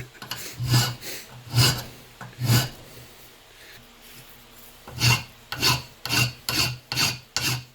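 Hand file rasping across a freshly machined square bolt head to take off the burrs. Three slow strokes, a pause of about two seconds, then six quicker strokes.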